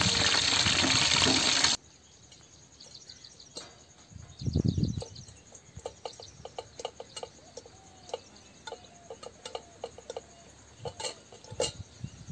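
A whole masala-coated fish sizzling loudly in hot oil, cut off abruptly about two seconds in. Then a hen drinking from a steel pot, with small sharp clicks, faint chirping and a dull thump about four and a half seconds in.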